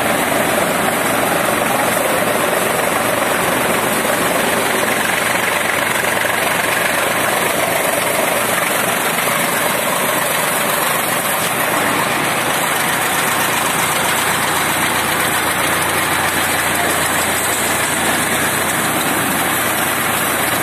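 Tractor engine running steadily, driving a PTO-operated chaff cutter.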